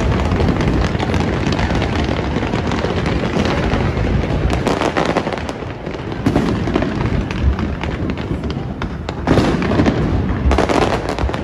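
Aerial fireworks display: shells bursting in rapid, overlapping succession with continuous crackling, and heavier clusters of bangs about five seconds in and again near the end.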